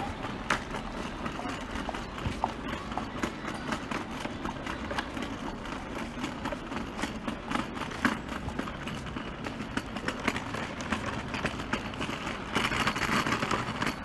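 City street ambience: many quick footsteps clicking on pavement over a steady hum of road traffic, with a louder, brighter stretch of noise near the end.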